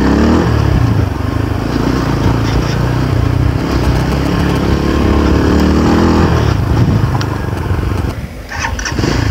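Motorcycle engine running hard on a rough off-road track, its revs climbing and falling under load, with a short drop in revs near the end.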